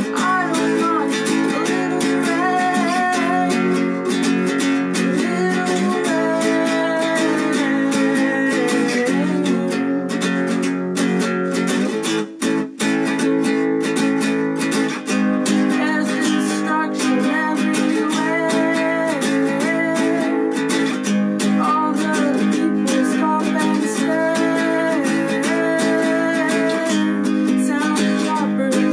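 Nylon-string classical guitar played in an instrumental passage of a song, with steady rhythmic strokes and a brief break about twelve seconds in.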